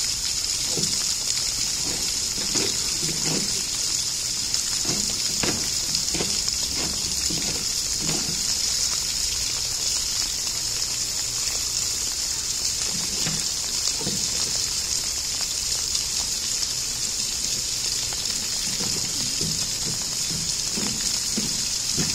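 Steady rush of flowing water, with scattered low knocks and scrapes from a polar bear working at a plastic polytank and its food on concrete steps.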